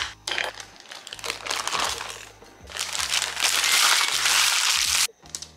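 Baking paper crinkling and crumpling as it is peeled off a freshly baked brownie, getting much louder about halfway through and stopping suddenly shortly before the end.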